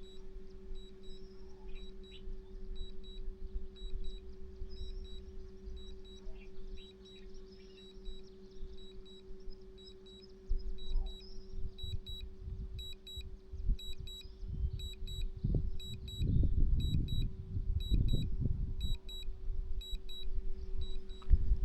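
A drone remote controller beeps in a steady repeating pattern of short high beeps while the drone is called back home. Under it runs a steady low hum, and from about halfway through, gusts of wind rumble on the microphone.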